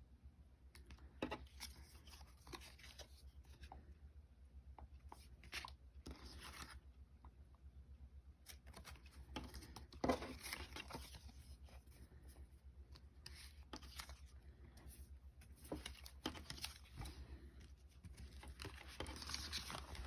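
Faint rustling and clicking of Pokémon trading cards and their packaging being handled and flipped through, with one louder knock a little past halfway, over a steady low hum.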